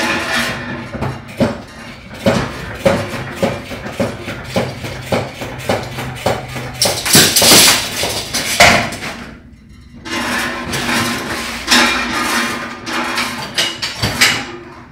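A full steel water heater tank being rocked and shifted on a metal hand truck, with a run of knocks and clunks. The knocks are loudest a little past the middle and pause briefly before they start again.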